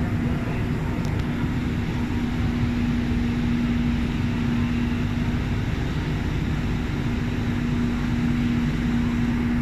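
Sentosa Express monorail running, heard from inside the car: a steady low rumble with a constant hum.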